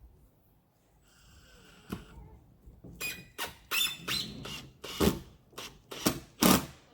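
A short high squeak, then a quick run of about ten hammer blows, two to three a second, as a fastener is driven into the wood of the coop.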